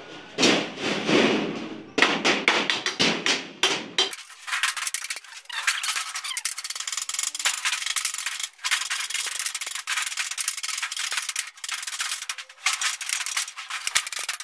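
Rapid scraping and rubbing on galvanized sheet metal, a dense run of short strokes that turns thin and hissy about four seconds in.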